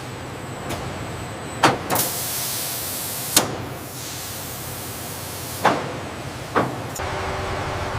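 Machinery running with a steady hiss, louder for a few seconds mid-way, broken by five sharp knocks, two close together about two seconds in and the others spread through the rest.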